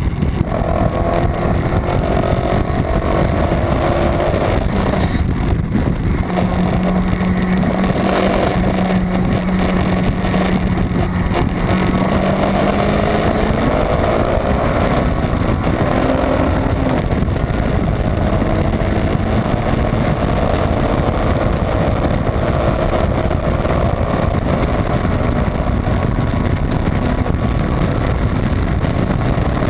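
Honda Civic EG's B18 non-VTEC inline-four engine running hard at racing speed, its note holding and then slowly climbing and easing, over heavy road and wind noise.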